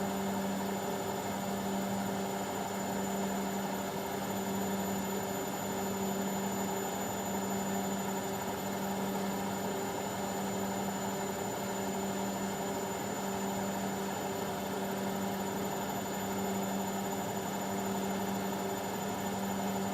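Indesit washing machine on its high-speed spin cycle, the drum spinning at a steady speed with a constant motor hum over a rushing noise.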